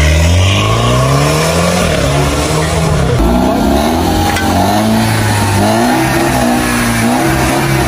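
Car engine revving hard, its pitch climbing and falling repeatedly, with a long rise in the first two seconds and then a series of shorter climbs and drops.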